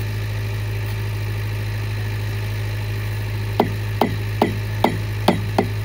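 A steady low hum, like a motor running, with a run of sharp, evenly spaced clicks, about two or three a second, starting a little past halfway.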